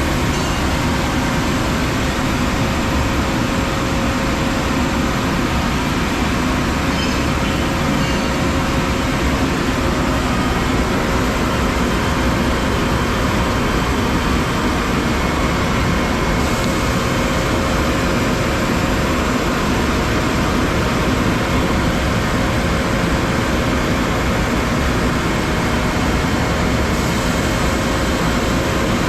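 Two-head 36-inch wide belt sander running under power, a loud, steady machine noise with a faint steady hum.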